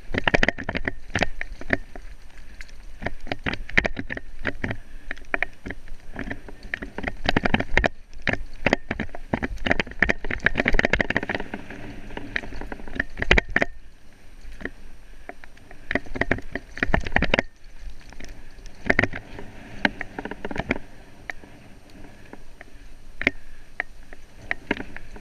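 Off-road vehicle jolting over a rough trail, with rapid knocks and rattles over a steady rumble; rougher, louder stretches come several times.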